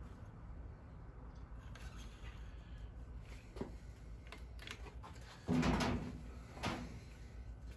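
Carburetor bank of a Yamaha R6 being worked down into its rubber intake boots: a few faint clicks, then a louder knock and scrape about five and a half seconds in and a shorter one about a second later.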